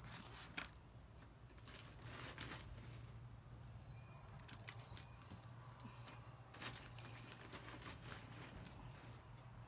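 Hand trowel scooping potting mix and tipping it into plastic pots: soft scrapes and rustles of the loose mix with a few sharp clicks, over a low steady hum.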